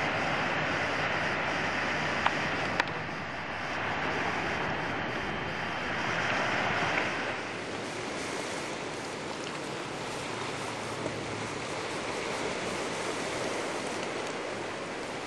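Ocean surf washing on the shore, a steady rush that swells and falls back twice, with two small clicks about two and a half seconds in.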